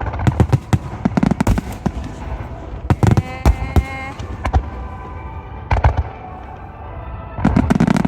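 Aerial fireworks shells bursting in quick clusters of sharp cracks, with deep booms underneath.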